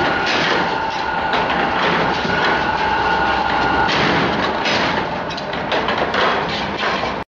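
Wire handle-forming machine for milk can handles running, with rapid metallic clattering and knocking from its forming and cutting tooling and a high steady whine for the first few seconds. The sound cuts off suddenly near the end.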